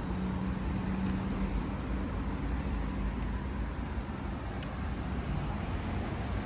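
Street traffic: a low, steady rumble of road vehicles, with a vehicle engine humming nearby that fades about halfway through.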